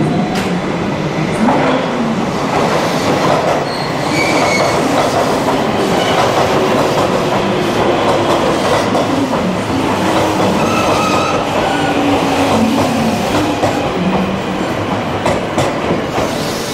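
JR West 283 series electric express train running slowly past, a steady rumble of wheels on rail with clicks over the rail joints and brief thin squeals from the wheels.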